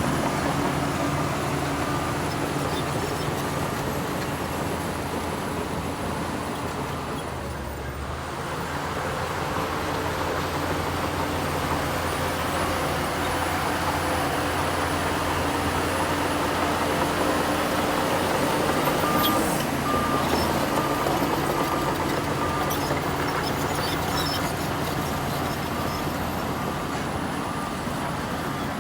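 Heavy earthmoving machinery's diesel engine running steadily under load. The note dips briefly about a quarter of the way through, and a run of short, evenly spaced beeps sounds about two-thirds of the way through.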